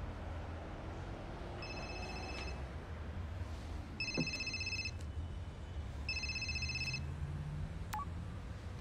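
Smartphone ringtone ringing three times, each ring just under a second long and about two seconds apart: an incoming call.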